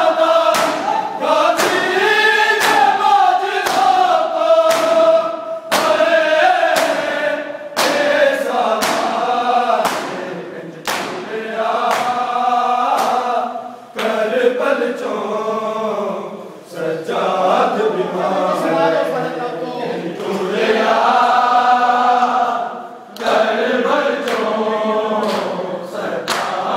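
A group of men chanting a noha, a Shia lament, together in a loud chorus, with rhythmic sharp slaps of hands striking bare chests in matam.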